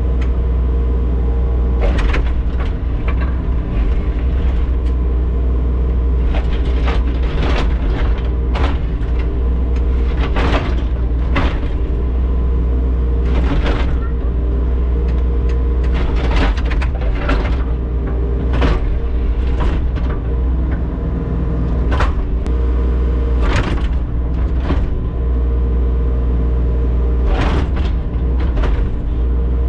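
Diesel engine of a compact digging machine, a skid steer or mini excavator, running steadily under load, with many sharp clanks and scrapes every second or two as the bucket digs into frozen ground.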